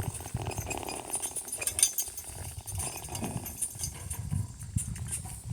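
Hooves of a pair of harnessed donkeys walking at a steady pace, with the light clinking of their harness.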